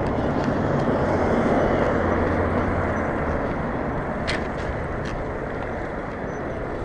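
Steady wind rush on the camera microphone from riding a bicycle along a road, mixed with road and traffic noise; a low rumble fades about three seconds in, and there are a couple of light clicks near the end.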